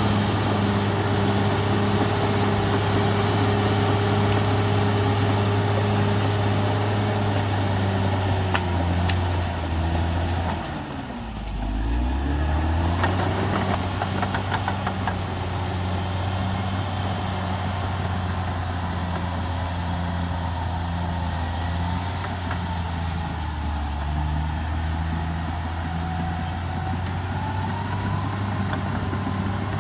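CAT D6R XL bulldozer's diesel engine running steadily. About ten seconds in, its revs fall sharply and the sound dips, then the engine climbs back to speed. A few sharp clanks and cracks are heard along the way.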